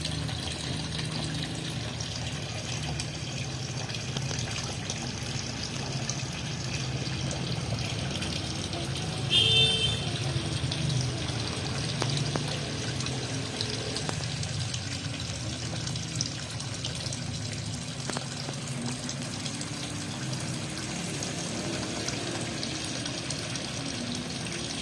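Water running steadily into a fish pond, a continuous pouring trickle. About nine seconds in, a brief high-pitched sound cuts through.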